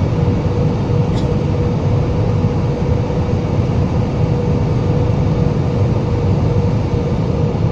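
Jet airliner cabin noise at a window seat in flight: a steady low roar of the engines and airflow, with a constant hum running through it.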